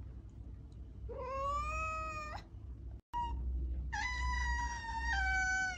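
Domestic cat meowing: two long, drawn-out meows, the second higher than the first and stepping down in pitch near its end.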